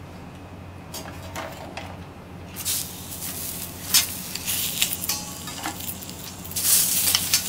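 Abalone in its shell sizzling on a hot steel teppanyaki griddle, with clicks and scrapes of a metal spatula. The sizzle starts about two and a half seconds in and grows louder near the end. A sharp metal click about four seconds in is the loudest sound, over a steady low hum.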